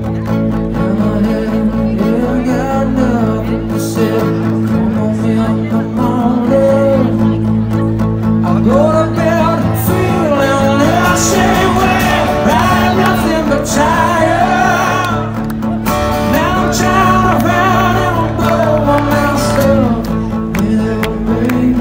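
Male singer with a guitar, performing live solo through a large outdoor PA system. The singing grows stronger about eight seconds in.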